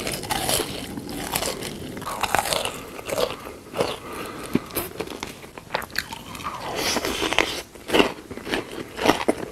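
Close-miked eating: irregular crunchy bites and chewing, with a couple of louder crunches near the end.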